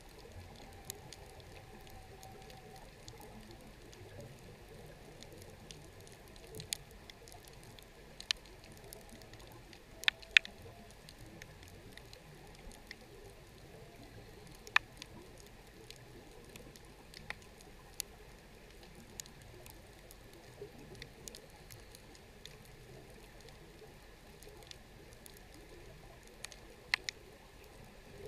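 Underwater ambience at a shipwreck: a faint steady hiss broken by irregular sharp clicks and snaps, a few of them much louder than the rest.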